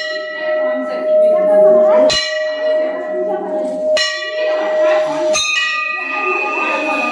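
A bell struck four times, about every one and a half to two seconds, each stroke ringing on as a clear sustained tone; the last stroke rings at a different pitch.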